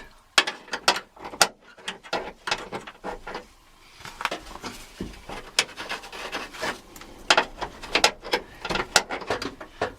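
Irregular clicks, taps and rubbing from hands working a minivan liftgate latch mechanism, turning a release cable to slip its tang out of the latch. There is a quieter stretch about two seconds in.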